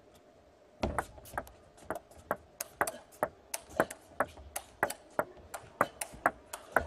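Table tennis rally: the ball clicking in quick alternation off the paddles and the tabletop, about two to three sharp clicks a second, starting about a second in and ending near the end.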